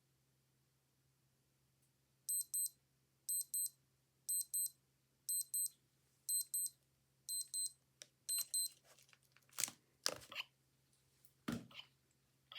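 Old digital watch alarm beeping: seven quick double beeps at a high pitch, one pair a second, that then stop. A few louder, short noisy sounds follow near the end.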